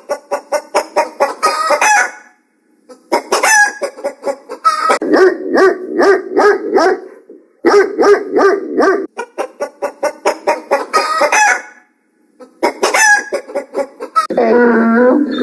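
Recorded chicken calls: bursts of rapid clucking and cackling, played over several times with short breaks between them. Near the end a lower, wavering donkey bray begins.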